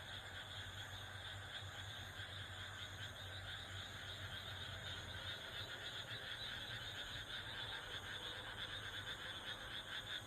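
Night chorus of insects, a steady high-pitched chirring that holds unchanged, with a faint low hum underneath.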